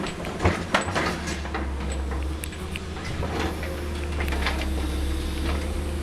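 Caterpillar 330C long-front excavator at work: a steady diesel engine drone, with two sharp knocks about half a second in and lighter clicks and rattles from the machine.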